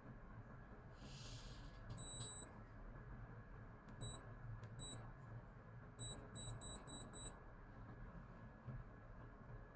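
Digital watch beeping: one longer high beep about two seconds in, two short beeps a little later, then a quick run of five beeps.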